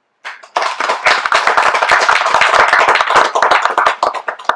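Audience clapping: a few first claps, then steady applause that thins out and stops near the end.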